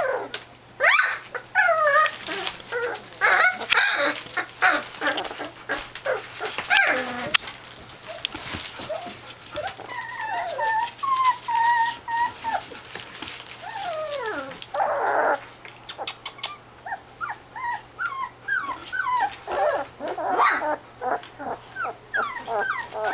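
A litter of young puppies whining and yelping, many short falling cries one after another. A longer drawn-out whine comes about ten seconds in, and a brief rough noise about fifteen seconds in.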